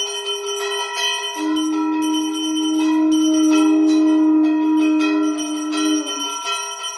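Puja bells ringing continuously during an aarti, many overlapping bright tones struck again and again. A long steady low tone sounds under them for about four seconds and stops near the end.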